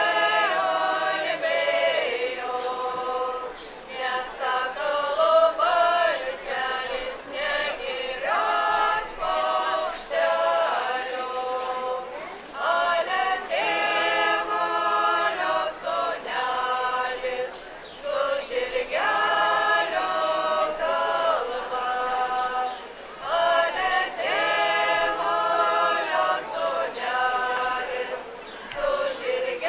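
A women's folk ensemble singing a Lithuanian folk song unaccompanied, several voices together in phrases of about five seconds, with short breaks for breath between them.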